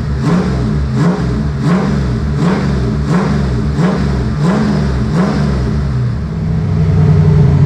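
Drift car's engine revved in repeated quick blips, rising and falling about once every three-quarters of a second, then settling into a steadier, louder run near the end that sounds rough.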